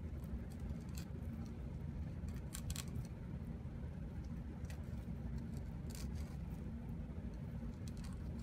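A steady low background hum, with faint scattered clicks and scrapes as a knife cuts along a pike conger fillet on a wooden cutting board.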